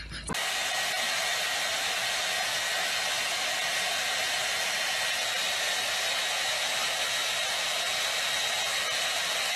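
Handheld hair dryer blowing steadily, a loud even rush of air with a faint high whine. It cuts in suddenly just after the start.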